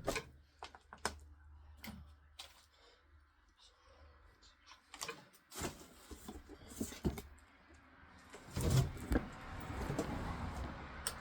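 Scattered knocks, clicks and handling noises as a homemade box is positioned against a wall for mounting. A louder knock comes near the end, followed by a few seconds of scraping and rustling.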